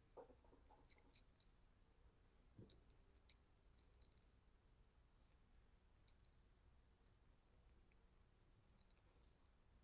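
Faint, scattered clicks of a computer mouse and keyboard, some in quick pairs, over near-silent room tone.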